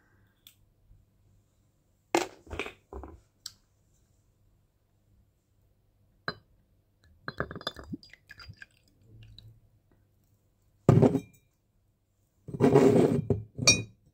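Green glass soju bottle and its screw cap being handled: a scattering of sharp clicks, knocks and glass clinks, with two louder, longer knocking and scraping bursts near the end.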